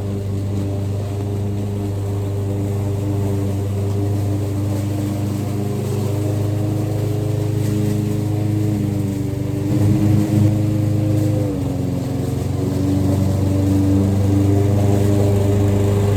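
Gasoline lawn mower engine running steadily. Its pitch sags a little about two-thirds of the way through, then recovers.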